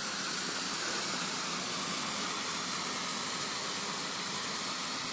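Red smoke flare (smoke bomb) burning with a steady hiss.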